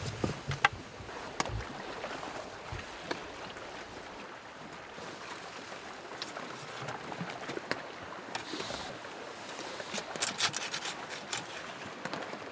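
Steady hiss in the background with scattered sharp clicks and a cluster of clinks near the end: a wire grill basket being opened and camp pizzas handled with metal tongs.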